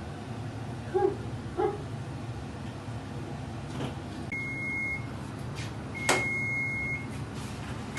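Electronic beeps from a kitchen appliance: a steady, high-pitched tone lasting just under a second, sounding twice in the second half over a steady low hum. Two short lower tones come about a second in.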